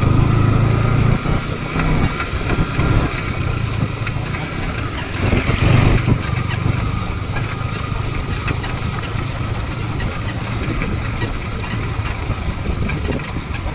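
Yamaha R15 V3 motorcycle's single-cylinder engine running steadily on the move, with wind noise over the microphone. There is a brief louder swell about five or six seconds in.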